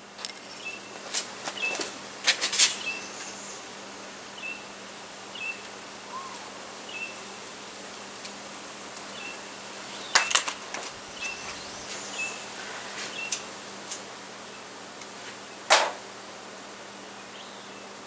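Scattered clicks and knocks from handling, loudest about two and a half, ten and sixteen seconds in, over faint short high chirps recurring every second or so.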